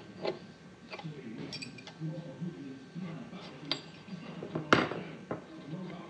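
Small steel parts of a key cutting machine clinking and tapping as the cutter wheel, washer and nut are handled on its spindle: half a dozen separate sharp metallic clicks, the loudest about three quarters of the way through.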